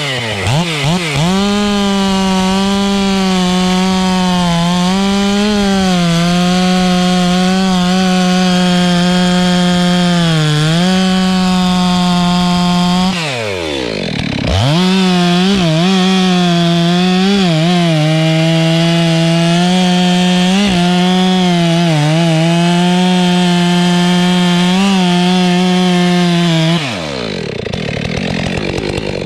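Stihl MS 462 two-stroke chainsaw running at full throttle while cutting wood, its pitch sagging a little now and then under load. About 13 seconds in it drops off the throttle briefly, then revs back up. Near the end it falls back to idle.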